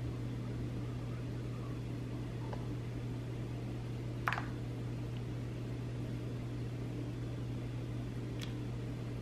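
Steady low hum of a running kitchen appliance, with one sharp tap a little over four seconds in and a fainter tap near the end.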